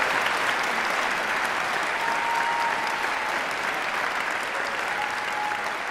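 Audience applauding steadily, slowly dying down, with a few brief calls from the crowd above the clapping.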